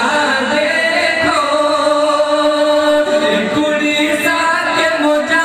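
A man singing a naat without instruments, holding long drawn-out notes through a microphone.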